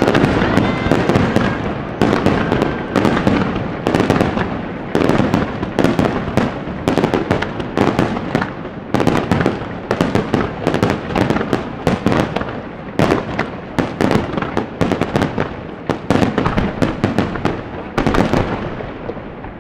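Aerial fireworks shells bursting in rapid, overlapping succession, many sharp bangs close together with a rumbling echo between them, thinning out and fading near the end.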